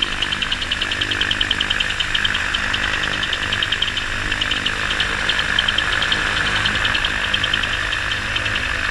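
Microlight trike's engine running at low power during taxi, a steady drone with a fast, even pulsing.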